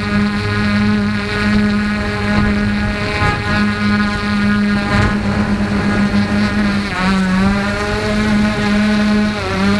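Motorboat engine running steadily. Its pitch dips briefly twice, about seven seconds in and again near the end.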